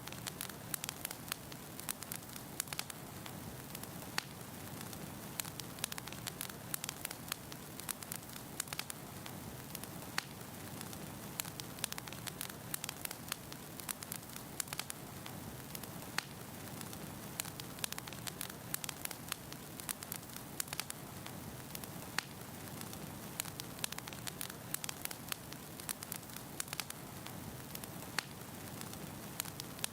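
Wood logs burning in a fireplace: a steady low rush of the flames with frequent irregular sharp crackles and pops of the wood.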